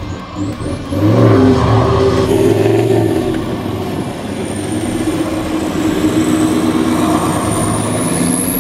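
Toyota LandCruiser 79 Series engine revving up about a second in and pulling under load as it tows a bogged car out of soft beach sand on a snatch rope.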